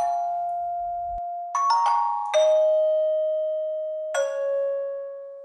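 Closing sound-logo chime: bell-like struck notes, about five in all, each ringing on, the pitch stepping down, the last one fading out.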